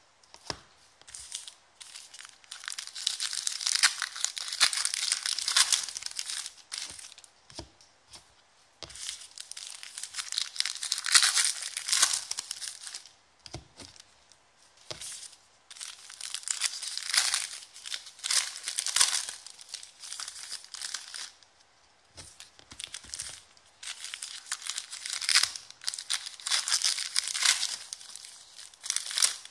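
Foil wrappers of 2015/16 Clear Vision basketball card packs crinkling and tearing as they are ripped open and handled, in repeated rustling spells with short pauses between.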